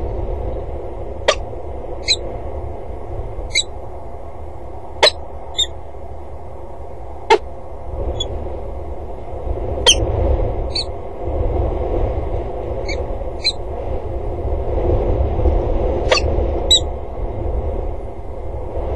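Wind rumbling on an outdoor microphone, with about a dozen sharp clicks scattered through, several of them carrying a short high metallic ping.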